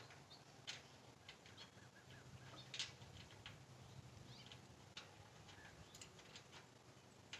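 Faint, irregular small metallic clicks and clinks, with one sharper click about three seconds in, as a bolt and nut are worked on a steel hay ring panel. A low steady hum sits underneath.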